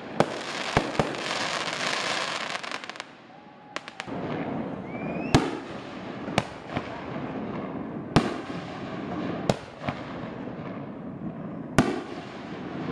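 Aerial fireworks shells bursting overhead: sharp bangs every second or two, with a thick spell of crackling over the first three seconds.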